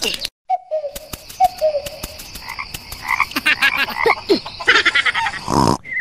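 Frogs croaking in repeated short calls, over a steady high trill and scattered clicks, as night ambience; a loud rough burst comes near the end.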